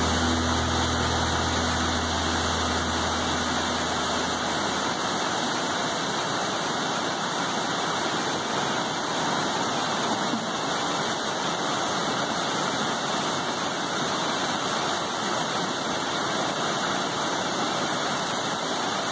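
River water rushing steadily, an even loud hiss. A low steady hum underlies it at the start and stops about four seconds in.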